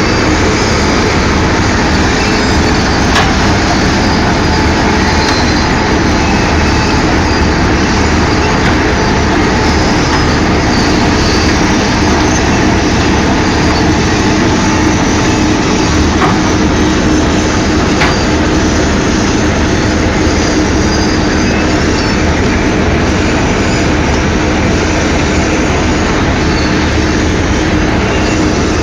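Asphalt milling machine running, its cutting drum grinding two inches off the asphalt pavement; loud and steady throughout, with a constant hum under the grinding.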